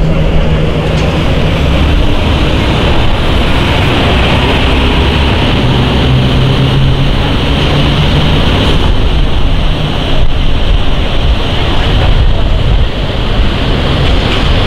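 Loud, steady city street noise: a rumble of passing traffic mixed with wind buffeting the microphone.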